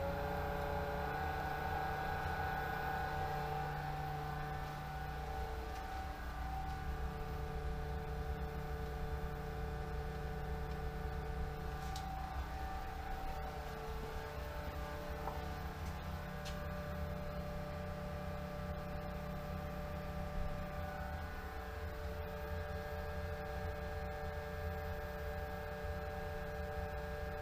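A 1.5-horsepower Pentair SuperFlo variable speed pool pump running steadily at about 1700 RPM, a constant motor hum and whine. Its tone shifts about a second in as the speed setting steps up. One brief click about twenty seconds in.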